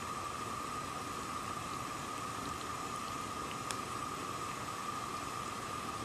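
Water boiling over a burning gas flame: a steady, even hiss with a few faint pops, one a little sharper about three and a half seconds in.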